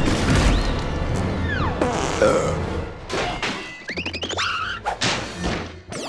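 Cartoon score with slapstick sound effects: crashes and thuds over the music, a falling whistle about a second and a half in, and a quick run of rising zips around four seconds.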